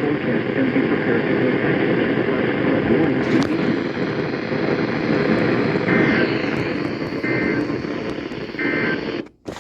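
Weather radio receiver hissing with steady rushing static. Near the end, three short two-tone data bursts about a second and a half apart come through the static: the SAME header of an Emergency Alert System broadcast. The sound cuts off suddenly just before the end.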